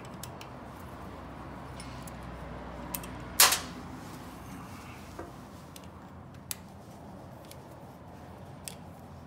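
Light metallic clicks and ticks of a hand tool and screws being worked at a lathe's apron lever bracket, with one sharper clack about three and a half seconds in, over a steady low workshop hum.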